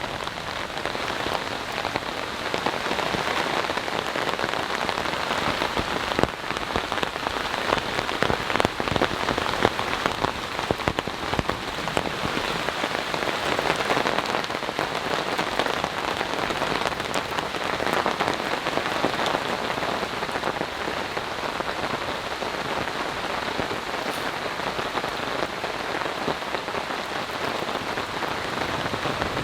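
Heavy rain falling steadily, with many close, sharp drop impacts on a nearby surface; the hits come thickest early in the middle.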